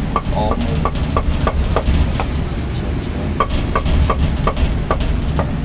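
Meat cleaver chopping roast meat on a thick wooden chopping block: a regular series of sharp knocks, about three a second, with a pause of about a second midway. A steady low rumble runs underneath.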